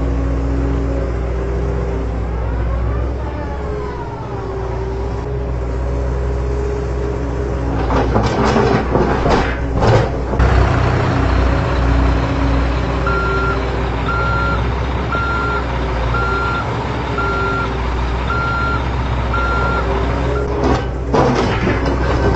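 Toy RC dump truck's sound module playing a steady truck-engine rumble, with an electronic reversing beeper sounding seven times, about once a second, in the second half. Two short bursts of scraping and rattling break in, about 8 s and 21 s in.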